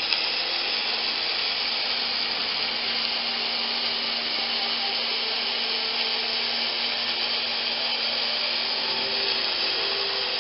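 Automated MIG welding arc burning steadily: an even hiss with a faint steady hum beneath it.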